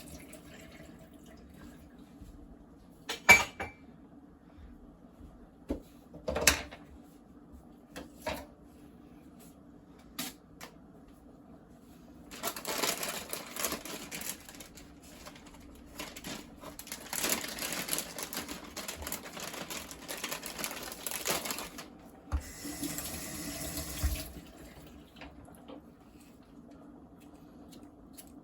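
Kitchen work: a few sharp knocks and clatters, then a water tap running in three bursts of a few seconds each.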